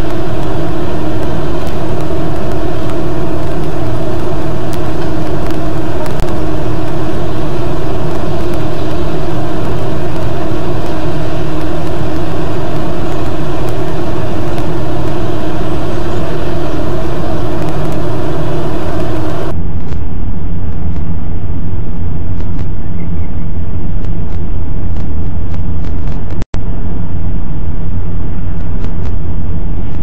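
Loud, steady road-traffic noise picked up by a webcam microphone, overloaded and distorted. It turns duller about two-thirds of the way through and drops out for an instant near the end.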